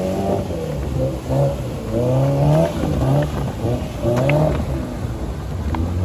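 A Maruti Suzuki Gypsy 4x4's petrol engine revving up and down repeatedly under load while driving off-road, its pitch rising and falling every second or so.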